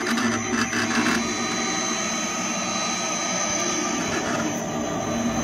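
Advanced Plotting Devices 15-inch portable cutting plotter running as it cuts a stencil: a steady mechanical whir from its motors driving the cutting head and rollers, with a thin high tone over it.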